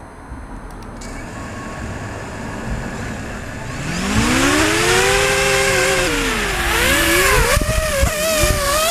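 Quadcopter's electric motors and propellers, heard up close from the craft itself: a low hum starts about a second in, then about four seconds in the motors spin up with a whine rising in pitch, which then wavers up and down as the throttle is worked. A few sharp knocks come near the end as the craft shifts on the ground.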